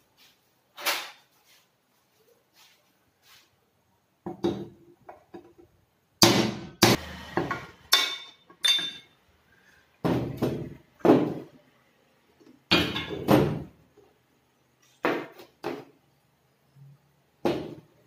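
Irregular hammer blows on metal, a dozen or so with some in quick pairs, knocking the fan shaft and bearing out of a power tiller's cast fan housing.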